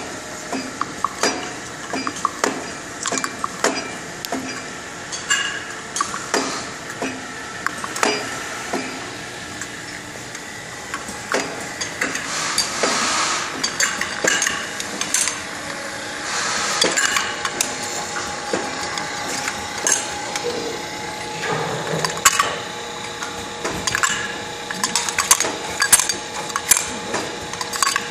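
Small metal parts clicking and clinking against each other and against the metal rails and fixture of an automatic loading machine, over a steady machine hum. A hiss comes in twice around the middle.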